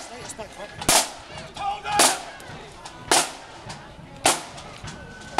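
Marching band side drums striking a single sharp crack about once a second, an even beat for marching with no tune being played.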